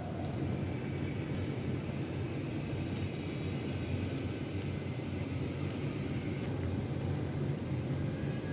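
Steady low background rumble, with a few faint clicks and taps as wires are worked into the terminals of a miniature circuit breaker.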